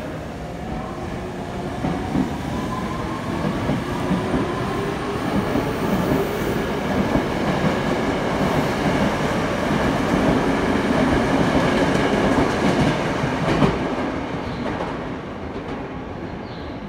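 Tokyo Metro Hibiya Line 03 series electric train pulling away from a station platform. Its motors whine in rising tones as it starts off, then the running rumble and wheel clatter build as the cars pass, with a sharp clack about 13 seconds in, and fade near the end as the train leaves.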